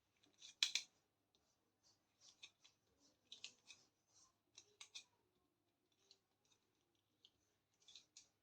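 Faint, scattered clicks and light rustles of small plastic toy kitchen pieces and packaging being handled, in a few short clusters.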